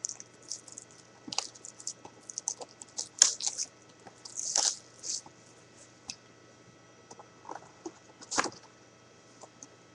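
Irregular crinkling, rustling and clicking of a trading-card hobby box and its packaging being handled and opened, with stronger crackles about four and a half and eight and a half seconds in.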